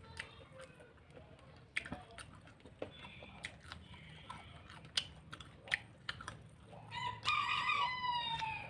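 A rooster crows once near the end, one long call that trails slightly downward at the close. Before it there are only scattered small clicks and taps of eating.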